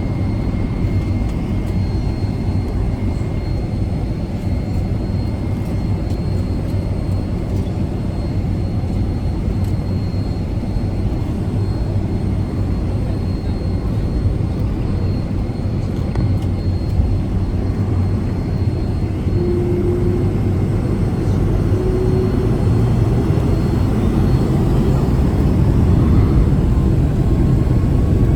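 Boeing 757-200 jet engines and airflow heard from inside the cabin: a steady low rumble with faint steady whines above it. It grows gradually louder over the last several seconds as a rising whine comes in near the end.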